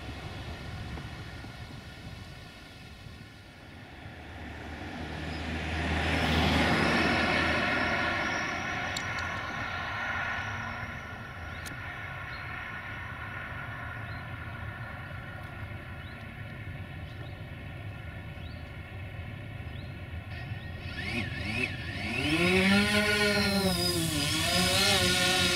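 Steady drone of an approaching 060-DA (LDE2100) Sulzer-engined diesel-electric locomotive hauling a freight train, with a road vehicle passing about six seconds in. Near the end a loud pitched sound comes in whose pitch bends up and down twice.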